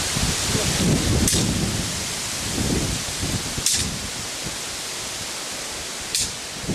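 Wind buffeting an outdoor microphone: a low, uneven rumbling over a steady hiss, strongest in the first few seconds, with three brief hissing bursts spaced a couple of seconds apart.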